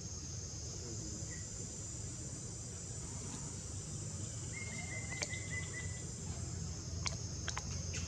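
Steady high-pitched insect chorus, with a short run of rapid chirps about four and a half seconds in and a few faint clicks near the end.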